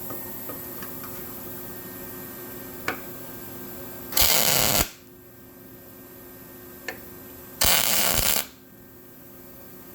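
Electric arc welder laying two short tack welds. Each is a loud crackling burst lasting under a second, the second coming about three seconds after the first, and each is preceded by a small click. A steady hum runs underneath.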